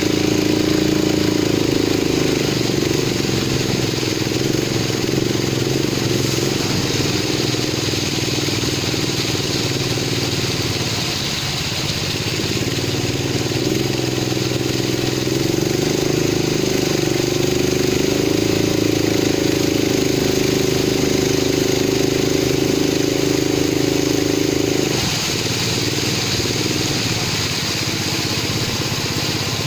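Longtail boat engine running under way. The engine note eases back a couple of seconds in, picks up again from about the middle, and changes suddenly about 25 seconds in.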